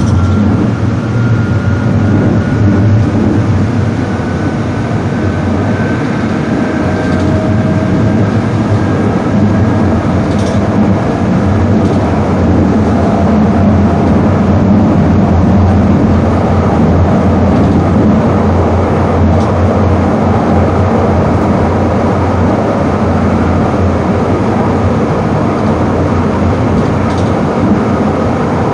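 Steady rumble of a moving vehicle, with a faint whine that slowly rises in pitch over roughly the first ten seconds.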